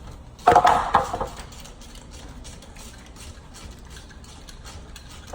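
Hand tools clattering against metal in an electrical panel, loudest about half a second in. A run of light, evenly spaced clicks follows, about three a second.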